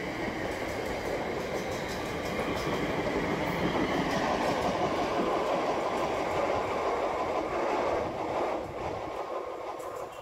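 Class 350 electric multiple unit trains running through the station, with wheels rumbling and clattering on the rails. The sound fades away near the end as the train draws off.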